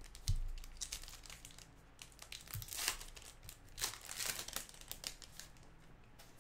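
Gloved hands handling a pack of baseball trading cards: the pack wrapper and cards crinkle and rustle in a few short bursts, with a soft thump near the start.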